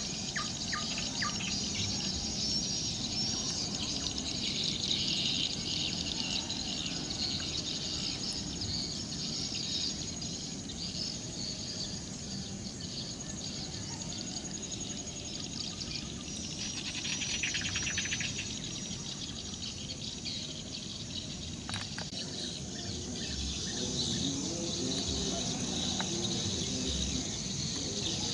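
Many small birds chirping and twittering over a steady, high-pitched insect buzz. A rapid, rattling trill comes partway through, and a single click is heard later.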